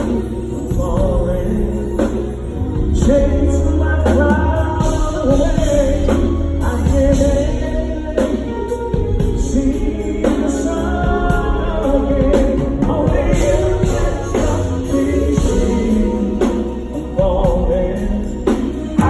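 Live concert music: a band playing with singing over it.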